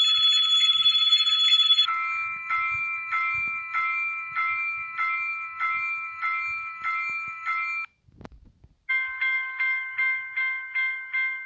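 Railroad crossing warning bells: a steady unbroken ring for about two seconds, then a bell dinging about two and a half times a second, then after a short break with a click, a different-pitched bell dinging about three times a second.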